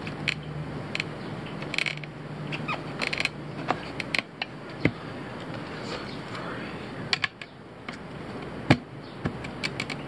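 Steel tire irons clinking and scraping against a steel wheel rim as a tire bead is pried over the rim by hand: a scatter of sharp metallic clicks and knocks, with one louder knock near the end.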